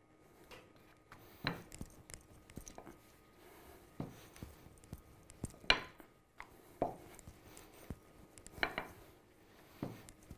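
Wooden rolling pin rolling out a thin disc of khinkali dough on a wooden board: soft rolling and rubbing with about six scattered light wooden knocks.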